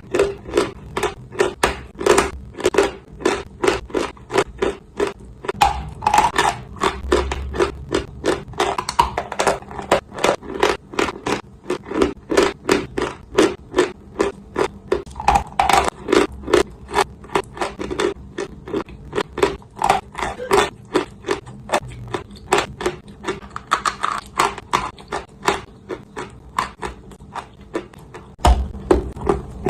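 Dry clay chunks being bitten and chewed close to the microphone: crisp crunches one after another, about two to three a second. A low rumble rises under them near the end.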